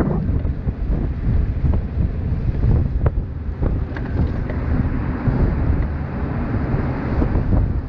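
Wind buffeting the microphone: a steady, loud low rumble, with a few faint clicks.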